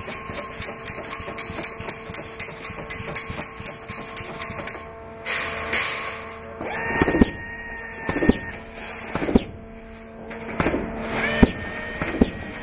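Industrial wire-mesh welding machine running: rapid regular ticking for the first few seconds over a steady hum, then bursts of hissing and sharp metallic knocks about a second apart, with a thin high whine in two stretches.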